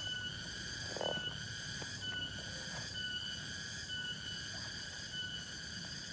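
Chorus of forest insects: a steady high whine with a short brighter tone pulsing about once a second. A brief soft thud about a second in.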